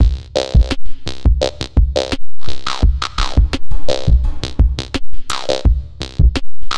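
Electronic background music with a steady drum beat, about two hits a second.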